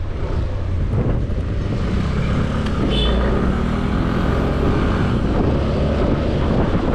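Motorcycle engine running steadily while riding along the road, a continuous low rumble.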